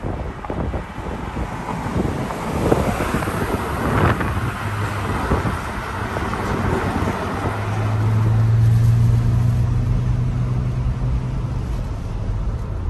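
Road and wind noise heard from inside a moving car, gusty wind buffeting at the open side window in the first half, then a steady low hum from about halfway through.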